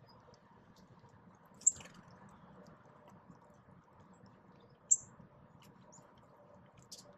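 Small songbirds at a ground feeder give two sharp, high chip calls about three seconds apart. Faint scattered ticks of birds pecking at seed run under a low background hum.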